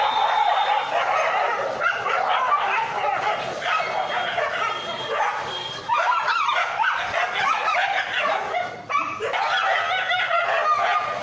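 Several street dogs fighting: a dense, unbroken mix of barks and yelps from many dogs at once, dipping briefly about six and nine seconds in.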